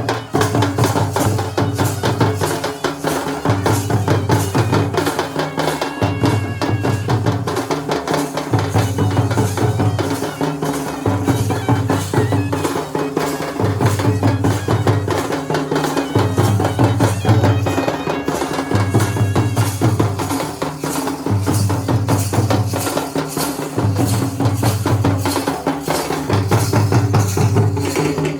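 Traditional Indian folk drumming on kurum dhol and nagada: fast, dense drum strokes over a deep low boom that recurs about every second and a half.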